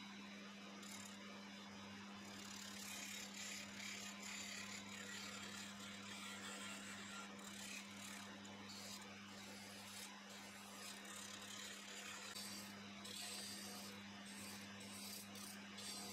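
Electric wood lathe's motor humming steadily while a hand chisel cuts into the spinning glued-up wooden blank, a rough hiss that rises and falls as the tool bites.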